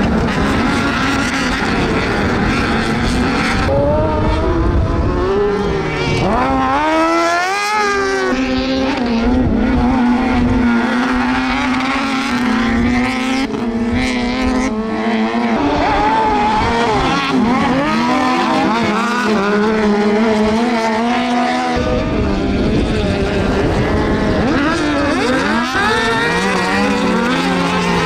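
Several carcross buggies racing on dirt, their high-revving motorcycle engines rising and falling through gear changes, with several engines heard at once. One engine revs up sharply about seven seconds in.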